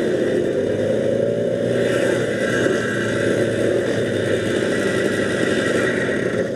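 Motorcycle engine running steadily at low speed, a fast, even pulsing with no gear changes or hard revving.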